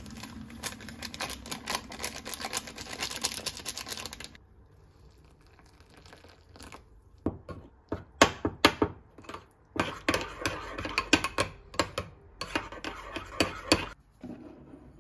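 Plastic sachet crinkling as it is squeezed and torn open, for about four seconds. Then a metal spoon clinks and scrapes against a ceramic bowl in a run of sharp taps while stirring a runny mixture.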